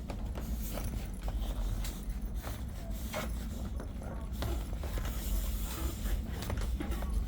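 Handling noise from a vinyl golf cart enclosure side panel being worked into the roof rail track: irregular rustling and scraping with scattered light clicks and knocks, over a steady low hum.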